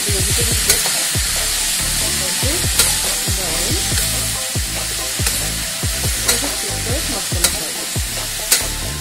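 Cluster beans and potato pieces sizzling in oil in a pressure cooker while a metal spoon stirs them, the spoon clicking against the pot about once a second.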